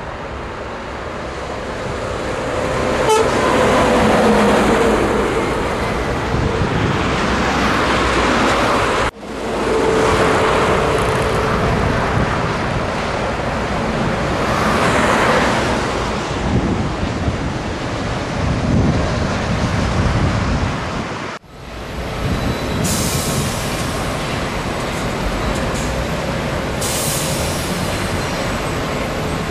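Scania truck on the move: engine and road noise swelling and easing, broken by two sudden brief drops in level, about nine seconds in and again about twelve seconds later.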